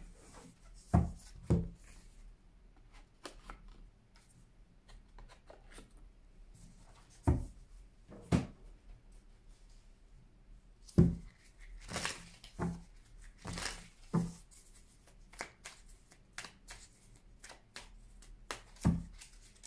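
Tarot cards handled on a table: a scattering of separate taps and soft knocks as cards are drawn from the deck and set into a wooden card stand, with a quicker cluster of card rustles and knocks about eleven to fourteen seconds in.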